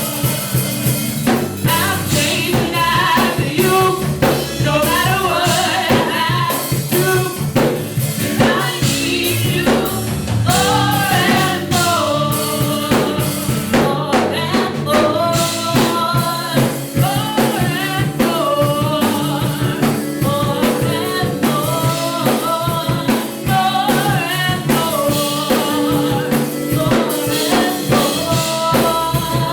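Live gospel worship music: singing over a band with drum kit keeping a steady beat.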